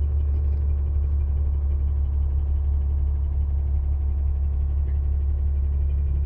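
Steady low rumble of a moving bus's engine and road noise, heard from inside the cabin.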